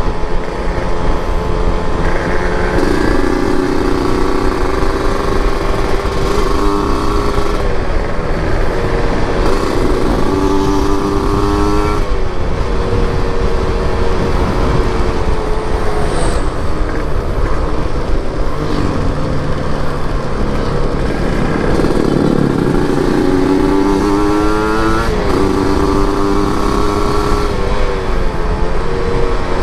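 Motorcycle engine heard from the rider's seat while riding, its revs climbing and dropping back several times as it pulls through the gears, over steady wind and road noise.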